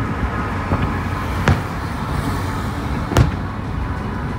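Aerial firework shells bursting nearby: two loud bangs, about a second and a half in and again just after three seconds, with a fainter one just under a second in. Underneath runs the steady road noise of a moving car.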